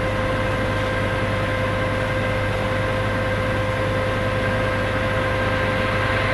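Concrete pump's engine running steadily: a constant low drone with a thin, unchanging whine above it.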